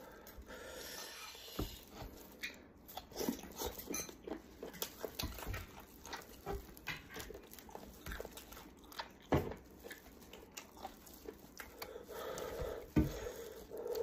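Wet eating sounds: a cooked sheep's head pulled apart by hands in plastic gloves, with squelching meat, chewing and lip smacks. Irregular small clicks and pops throughout, with two louder knocks in the second half.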